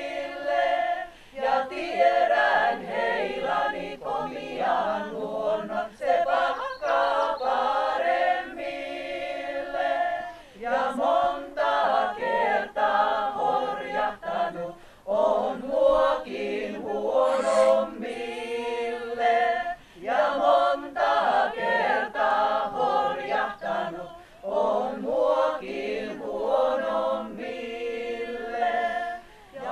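Women's folk-song ensemble singing a cappella, phrase after phrase, with short gaps between the phrases every few seconds.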